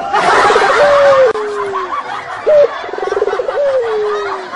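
A comic laughing sound, played twice about two and a half seconds apart: each time a quick upward yelp, a fast stuttering chuckle, then a long falling whine. Crowd noise runs underneath.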